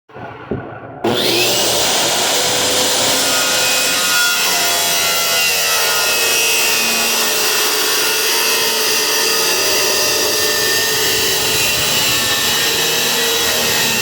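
A power saw spins up with a brief rising whine about a second in, then runs steadily cutting through wood.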